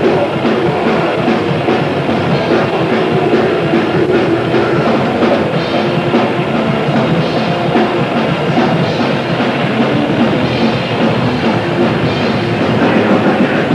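Live grindcore band playing: distorted guitars and bass over fast, dense drumming, loud and unbroken, in a rough-sounding amateur live recording.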